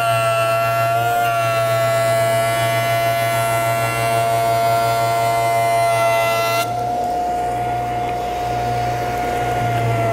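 Jointer running with its cutterhead planing the face of a rough board pushed across it: a steady high whine over a low hum, with the noisy rasp of the knives cutting. About two-thirds in the cutting noise stops abruptly, leaving the machine's whine, which starts to drop in pitch near the end.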